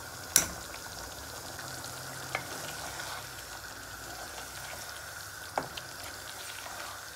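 Chicken pieces frying in tomato and spices in a karahi, sizzling steadily as a spatula stirs them through the sauce. A few sharp knocks on the pan, the loudest about half a second in.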